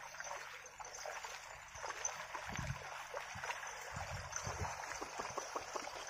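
Oxen hooves, a man's feet and a plough sloshing through a flooded, muddy paddy field: irregular soft splashes and squelches over a steady watery trickle, more of them from about two seconds in.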